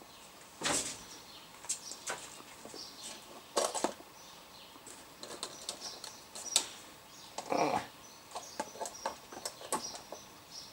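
Handling noise on a workbench: irregular clicks and knocks as coaxial cables, connectors and a meter are picked up, fitted and set down, the loudest about a second in and again near the middle.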